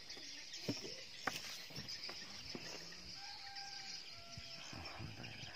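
Faint open-air riverside ambience: a steady high insect drone, a few faint knocks in the first second or so, and short distant bird calls about three to four and a half seconds in.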